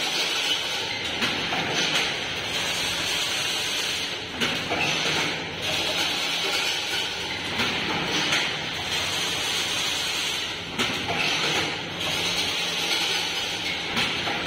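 Single-line-wire chain link fencing machine running steadily as it weaves wire mesh, giving a continuous metallic clatter with scattered sharp clicks.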